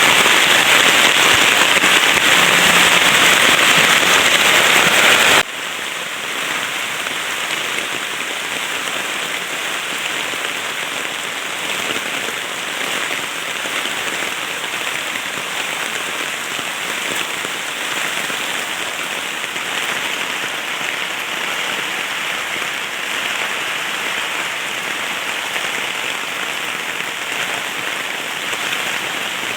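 Heavy rain pouring steadily. About five seconds in the sound drops suddenly to a quieter, even downpour that carries on unchanged.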